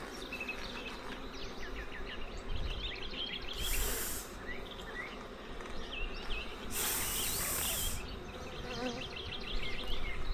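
Honeybees buzzing steadily around an opened hive, with two short bursts of hiss, a brief one about four seconds in and a longer one a few seconds later.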